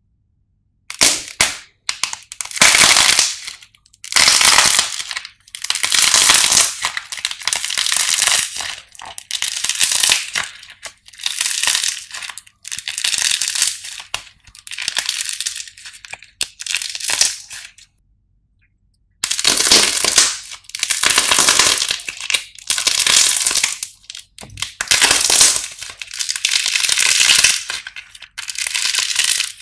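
Hardened clay cracking and crunching as it is snapped and squeezed in the hands, in repeated crackling bursts about a second long each. There is a break of about a second just past the middle.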